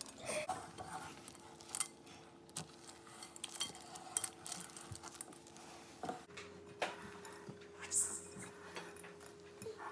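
Spatula stirring chocolate chips into thick oatmeal cookie dough in a glass mixing bowl: scattered light clicks and taps against the glass. A faint steady hum sits underneath.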